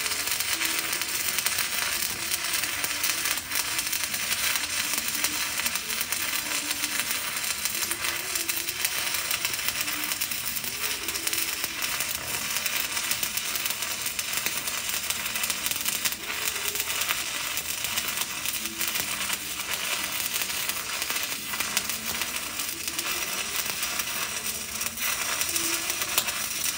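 Stick-welding (SMAW) arc from an E6010 rod run vertical-up on steel plate: a steady, unbroken crackling sizzle.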